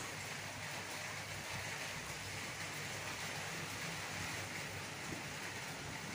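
Steady background hiss with a faint low hum and no distinct events: room noise.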